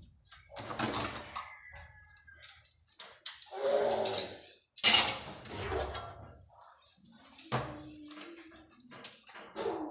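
Dishes and cups knocking and clinking against each other and a stainless steel sink during hand dishwashing, in irregular separate clatters. One knock rings briefly, and the loudest is a sharp clack about five seconds in.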